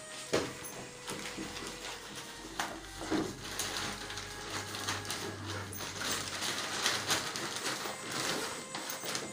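Paper and a plastic carry bag rustling and crinkling, with small knocks and handling clatter as belongings are gathered up and packed.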